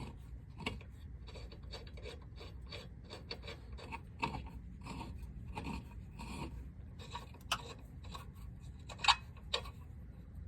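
Lug nuts scraping and clicking on a car's wheel studs and rim as they are worked on by hand; the owner suspects bad threads. A run of small scrapes, with a few sharper metal clicks, the loudest a little after nine seconds in.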